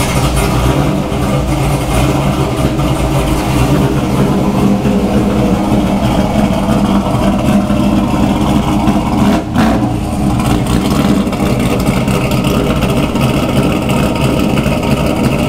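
GM LS V8 engine running steadily just after catching on its first start after a rebuild, with a brief dip near ten seconds in.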